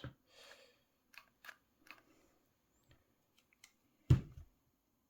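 Faint clicks and a brief rustle of small parts being handled, then a single dull thump about four seconds in.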